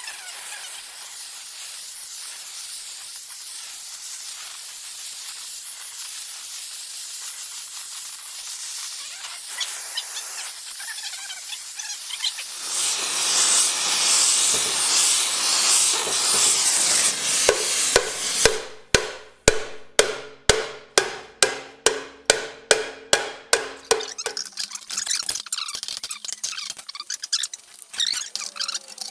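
Oxy-acetylene torch flame hissing steadily against a steel disc, growing louder about halfway through. A run of rapid, evenly spaced hammer blows on the hot sheet steel follows, about three a second, with the plate ringing under them. Lighter, irregular knocks come after.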